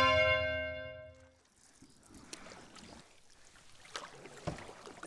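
A chiming note from the opening music rings and fades away over the first second and a half. Then come faint water sounds with a few soft knocks, as of a canoe being paddled.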